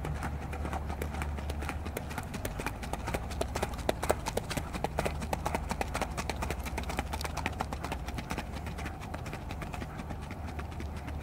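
Icelandic horse's hooves striking a sand riding track in a quick, even run of clip-clops as it is ridden along, loudest about four seconds in.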